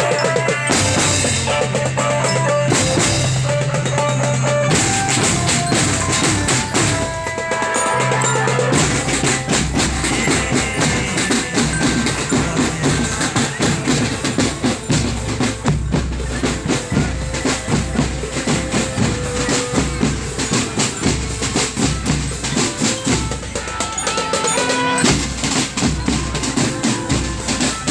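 Marching drum band playing. For about the first eight seconds, melodic notes sound over the drums; after that it becomes mostly a steady, driving beat of bass drums and snares.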